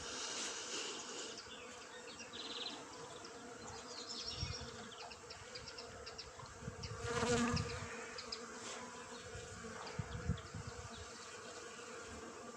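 Many bees working the blossoms of a flowering tree, a steady buzzing hum, with a louder buzz about seven seconds in as one passes close.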